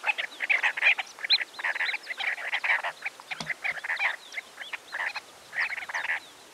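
A flock of sandgrouse giving flight calls: many short, throaty calls in quick, overlapping succession. These are the contact calls that keep the flying group together and draw in other birds.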